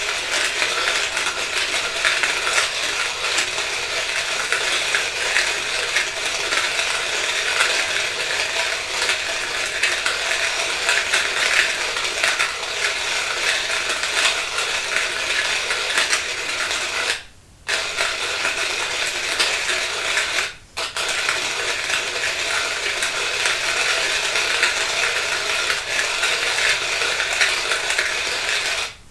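Dense, unbroken clicking and clinking of small hard objects being handled, with two short breaks past the middle.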